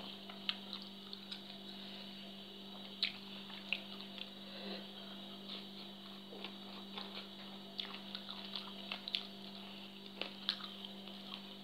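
Faint wet eating sounds: scattered chewing clicks, lip smacks and the slurp of rice noodles sucked in from the fingers, over a steady low hum.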